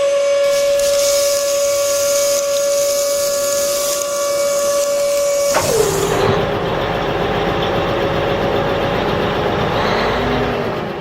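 A small motor whining steadily with a hiss over it; about halfway through, its pitch drops to a lower, rougher hum.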